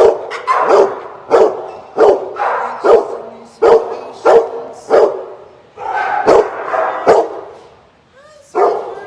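Kennelled shelter dogs barking repeatedly, sharp barks about once or twice a second that echo in the kennel room. There is a short pause near the end, then a brief rising whine.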